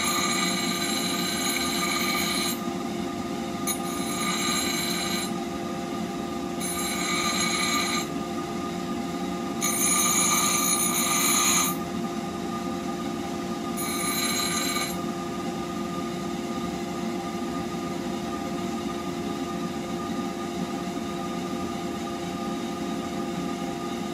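Electric bench grinder running steadily while a steel blade is pressed against its wheel in about five separate passes, each a high-pitched ringing grind of one to two and a half seconds, as the blade of a woodturner's tool is shaped. After the last pass, about 15 seconds in, the grinder's motor just runs on with an even hum.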